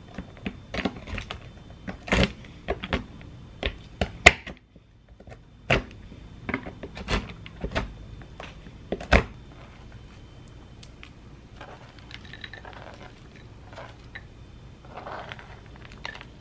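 Chef's knife chopping mixed nuts on a plastic cutting board: irregular sharp knocks of the blade striking the board, thickest in the first nine seconds, then softer and sparser to the end.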